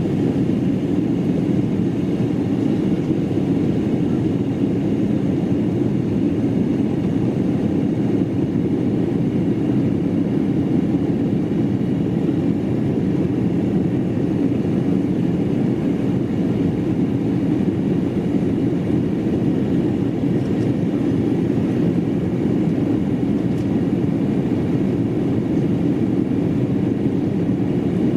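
Steady cabin noise inside an Embraer ERJ-195 airliner in flight: the even drone of its CF34 turbofan engines and airflow along the fuselage. It is deepest and loudest in the low range and does not change.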